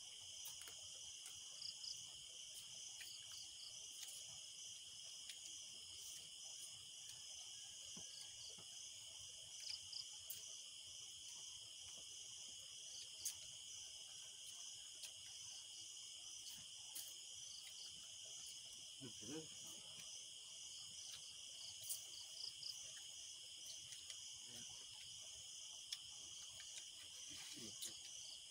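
Faint, steady chorus of night insects such as crickets: a continuous high trill with a second, pulsing trill above it.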